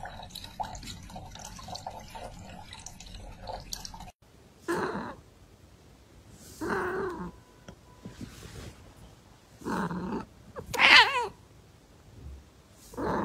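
Faint dripping and lapping as a cat drinks water through the neck of a plastic bottle water dispenser. After that, a white cat gives about five short calls a second or two apart, the fourth rising and falling in pitch.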